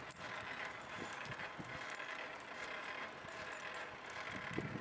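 Bicycle rolling along a paved path: a steady riding noise with scattered light metallic clinks and jingles.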